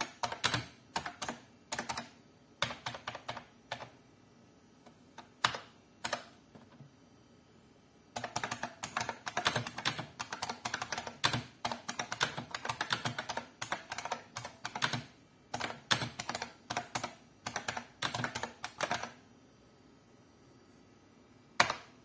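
IBM Model M keyboard's buckling-spring keys clicking under typing. Scattered keystrokes at first, then a fast, continuous run of typing from about eight seconds in until about nineteen, then a pause and one last keystroke near the end.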